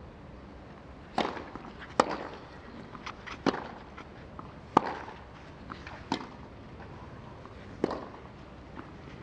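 Tennis ball struck by rackets in a baseline rally on a clay court: six sharp hits, about one to one and a half seconds apart. Fainter footsteps and shoe scuffs on the clay fall between the hits.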